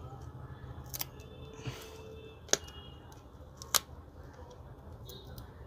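Sharp little clicks of a prying tool working a smartphone's glued back cover loose, the two loudest about a second apart midway, over a steady low hum.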